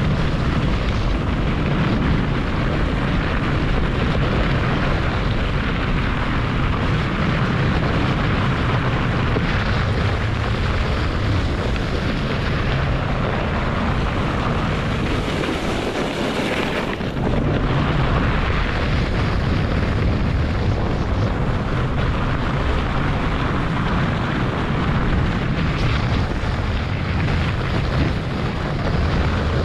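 A German Luge 115 wooden toboggan running down a packed-snow sled run: a steady rumbling rush of the runners on the snow, mixed with air rushing past the camera microphone. The noise briefly thins and turns hissier about halfway through before settling back.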